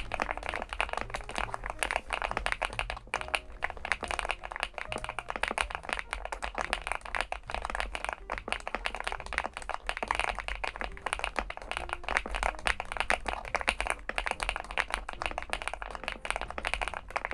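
Fast, continuous typing on the Weikav Stars75s, an aluminium-cased mechanical keyboard with PBT keycaps: a dense stream of keystroke clacks with no pauses.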